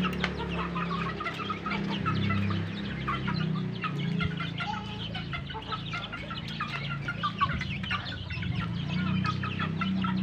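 A flock of native chickens and bantams clucking as they feed, with many short calls overlapping throughout, over a steady low hum.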